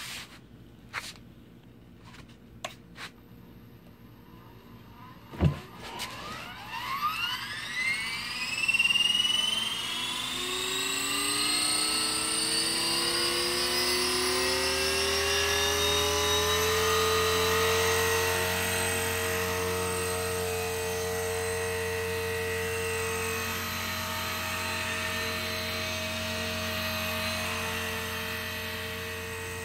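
Blade 450 3D electric RC helicopter spooling up: after a few clicks, its motor and rotor start about five seconds in, the whine rising in pitch for about ten seconds, then holding steady with a low hum as it hovers.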